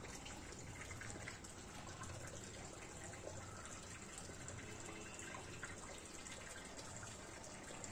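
Faint, steady trickle of running water, with small splashes flecking through it.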